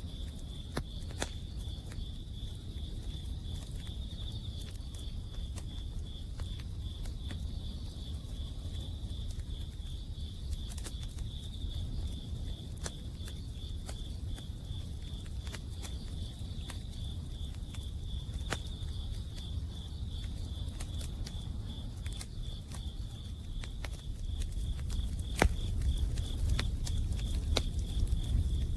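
Autumn insects chirping in one steady, high, pulsing trill, over a wood campfire crackling with scattered sharp pops that get louder near the end. A low rumble runs underneath.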